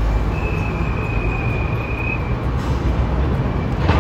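Low rumble of street traffic and an approaching Hiroshima Electric Railway tram. A thin, steady high squeal holds for about two seconds near the start, and a sharp click sounds just before the end.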